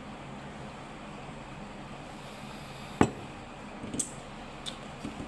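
Tableware knocking at a meal: one sharp clink about three seconds in, then a few light clicks, over a steady room hum.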